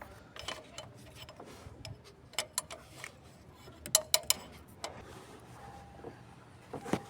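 Scattered sharp metal clicks and taps from a 17 mm wrench working the fuel rail line fitting as it is tightened back, with a small cluster of clicks about four seconds in.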